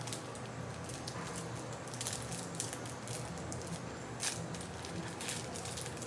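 Trading cards being slid and flipped over one another by hand, short scratchy swishes and light ticks at an irregular pace, over a steady low hum.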